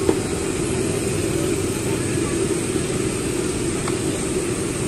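Steady rushing of a gas burner under a wok of deep-frying oil, with the oil bubbling around battered chicken pieces; a single light knock just at the start.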